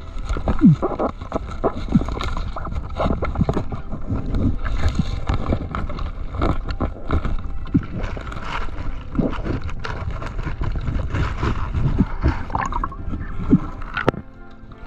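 Underwater sound through a GoPro in its housing: a steady rumble with gurgling and many irregular knocks and scrapes, as a diver wrestles a crayfish out of a rock crevice.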